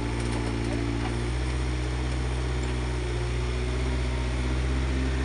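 Excavator's diesel engine running steadily, an even low drone with no change in pitch.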